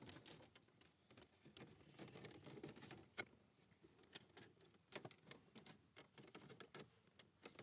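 Faint clicks and rustling of a plastic dash trim panel being handled and worked off its retaining clips, with one sharper click about three seconds in.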